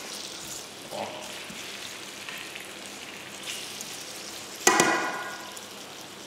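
Rice frying in a pan with chicken and onions, sizzling steadily as the grains are sweated until glassy before liquid goes in. A ringing metal clang about three-quarters of the way through.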